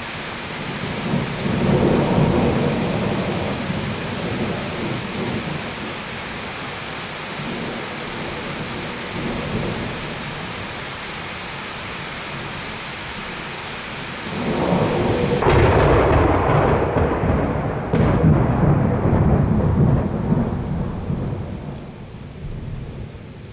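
Thunderstorm: steady rain with rolling thunder, a short rumble near the start and a longer, louder roll beginning about two-thirds of the way through that dies away near the end.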